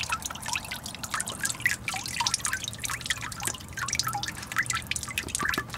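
Fuel dripping from the lower cowling of a 2011 Evinrude E-TEC 225 outboard into a container, a quick irregular patter of drops. The fuel is leaking out of the engine when the primer bulb is squeezed.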